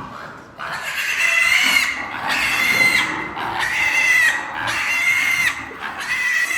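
Pig squealing in about five long, loud, high-pitched calls in quick succession, starting about half a second in.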